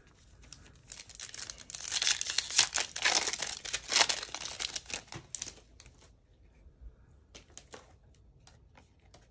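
A Topps Chrome trading-card pack's foil wrapper being torn open and crinkled for about five seconds. A few light clicks follow as the cards are handled.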